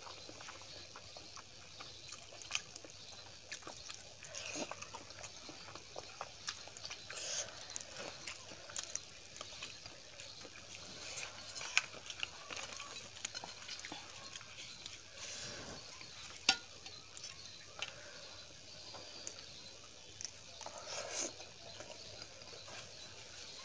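Close-miked eating sounds of rice, dal and curry eaten by hand: wet chewing and lip smacking, fingers scraping across a steel plate, and rumali roti being torn. Small sharp clicks come throughout, two of them louder, about halfway through.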